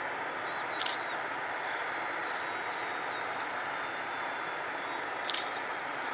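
Boeing 767-400ER's twin turbofan engines running at low power as the airliner taxis: a steady hiss with a faint, even whine. Two brief clicks, about a second in and near the end.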